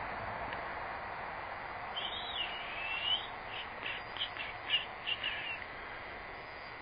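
A bird calling: a couple of sweeping whistled notes about two seconds in, then a quick run of short chirps, over a steady hiss that slowly fades.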